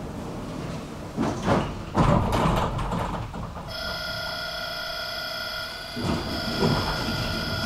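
Tram at a stop with its doors working: a few clunks and thumps, then about halfway in a steady electronic beep, several pitches at once, starts and keeps sounding, the signal that the doors are about to close.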